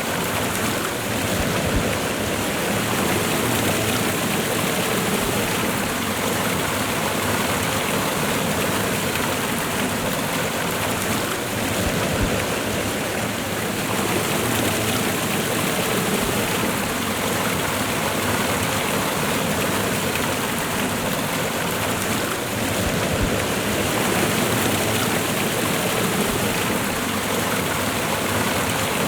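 Waterfall and river water rushing, a steady loud noise with no pauses.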